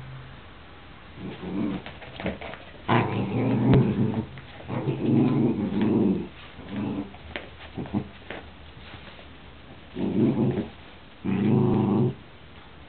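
Dogs growling in repeated short bouts during a tug-of-war over a rope toy. This is play growling in a game the dog has learned to enjoy.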